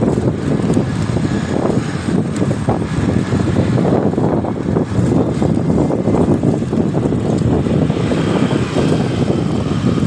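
Loud, steady rumble of inline skate wheels rolling over asphalt mixed with wind buffeting the microphone, with road traffic behind.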